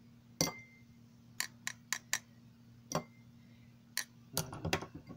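Scattered sharp clicks and ticks from a hair straightener's heated plate with water drops on it, a few followed by a brief ring, over a faint steady hum. The water is beginning to heat toward boiling on the plate.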